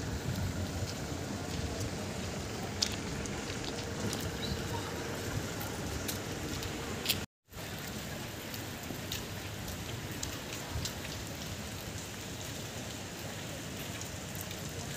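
Steady rain falling, an even hiss with a few light ticks; the sound cuts out for a split second about halfway through.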